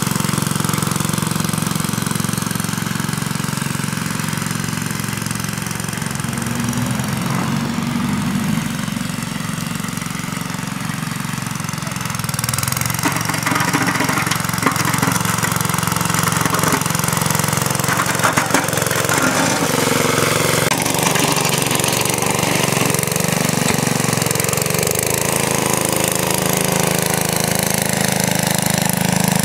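Wheel Horse 702 garden tractor's freshly rebuilt Kohler K161 single-cylinder engine running steadily while the tractor pushes snow with its front plow blade. The engine is fainter in the middle and louder again toward the end, with a few sharp knocks in the second half.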